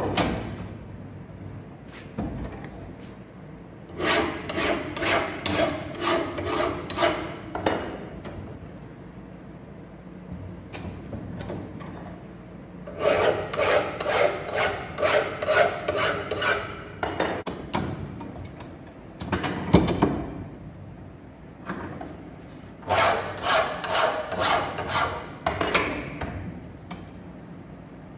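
Hand file deburring the sharp milled edge of a mild steel workpiece held in a bench vise: three bouts of rasping strokes at about two a second, with pauses between them. A metal clank at the start and a single knock about twenty seconds in.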